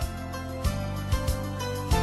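Background music with a steady beat and light chiming tones.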